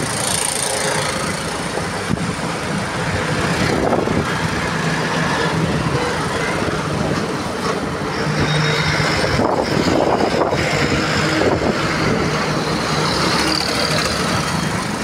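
Busy road traffic: engines of motorcycles, an auto-rickshaw, buses and a truck running close by, making a steady, loud mix of engine hum and road noise.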